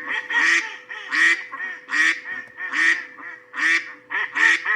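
Duck quacking over and over, a loud quack a little under once a second with softer quacks in between.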